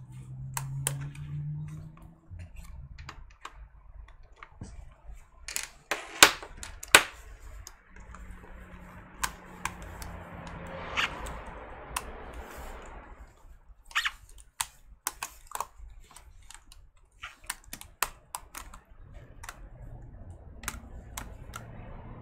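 Scattered small clicks, taps and scrapes of a screwdriver and loose plastic laptop parts being worked while screws are taken out to free a laptop keyboard, with two sharper knocks about six and seven seconds in and a soft rustle around the middle.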